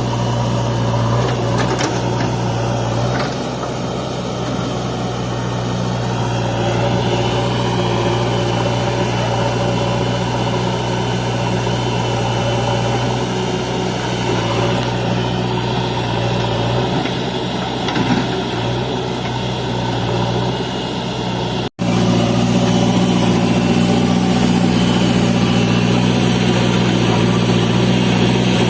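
Diesel engine of heavy farm or construction machinery running steadily with a low, even hum. About three-quarters of the way through, the sound cuts out for an instant and comes back with a slightly different engine note.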